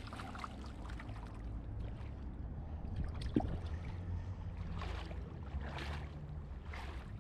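Creek water sloshing and splashing lightly in short irregular bursts, over a steady low rumble.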